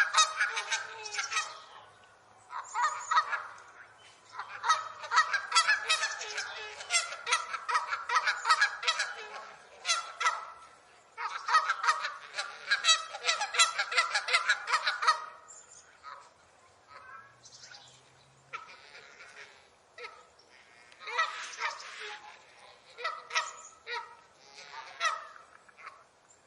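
A flock of geese honking, many calls overlapping in dense, loud bouts. In roughly the last ten seconds the honking thins to fewer, quieter calls.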